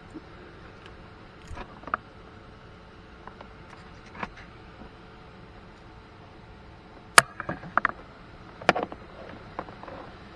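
Scattered clicks and knocks of cable plugs being handled and pushed into the input sockets of a portable power station, the two sharpest a second and a half apart in the second half, over a faint steady hum.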